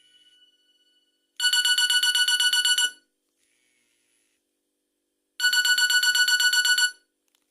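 Nokia N73 mobile phone alarm clock sounding: a rapid run of high electronic beeps, about eight a second, lasting about a second and a half. It repeats twice, with pauses of a few seconds between.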